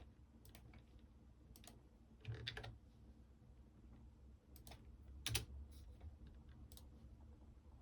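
Computer keyboard keystrokes, typed sparsely: a few single taps and small clusters with pauses between, the sharpest tap a little past the middle, all faint over quiet room tone.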